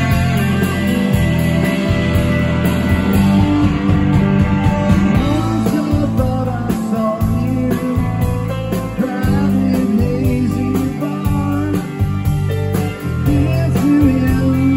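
Live rock band playing: electric guitar over bass and drums with a steady beat.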